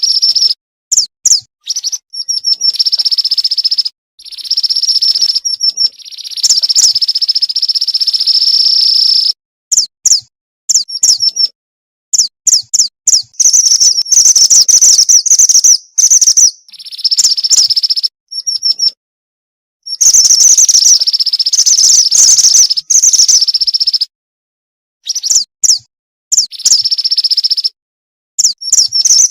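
Female mountain mantenan bird calling in high-pitched, rapid trilling chirps, used as a lure call to draw a male. The phrases come in stretches of a second or two that start and stop abruptly, with short silent gaps between them.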